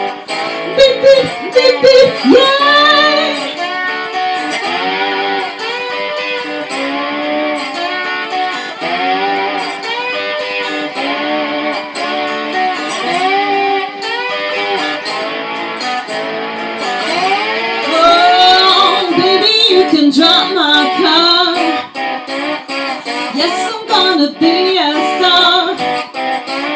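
Electric lap steel guitar playing an instrumental solo, its notes sliding up and down in pitch.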